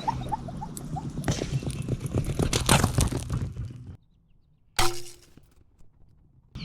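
A 3D-printed whistling arrowhead warbling in flight, a quick run of short chirps falling in pitch like a turkey's gobble, followed by a clatter of knocks and rustling. The sound cuts out suddenly about four seconds in, and near five seconds there is a single sharp click with a short ringing tone.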